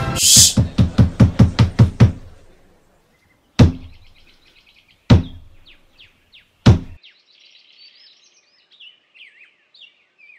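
The 'trois coups' that open a French play: after a brief crash, a quick run of about eight knocks, then a pause and three loud, slow knocks about a second and a half apart. Birds chirp through the second half.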